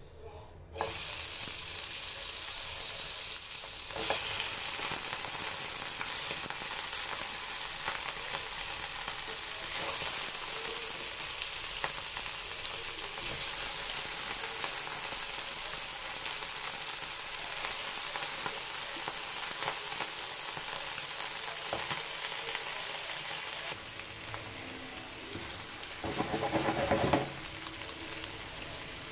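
Boiled oxtail pieces sizzling in hot oil in a nonstick frying pan as they are laid in one by one. The sizzle starts suddenly about a second in and jumps at about four seconds, with scattered clicks of plastic tongs against the pan. A brief louder clatter comes near the end.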